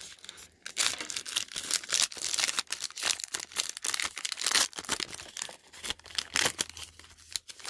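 Foil trading-card pack being torn open by hand, the wrapper crinkling and ripping in a run of uneven, sharp crackles.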